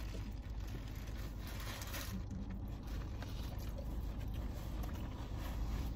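Quiet, steady low hum inside a car cabin, with faint chewing of a mouthful of burger.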